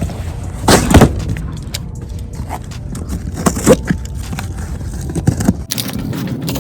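A box-cutter blade slicing through the tape and cardboard of a heavy shipping box, in scraping strokes with knocks of the box being handled, over a steady low rumble.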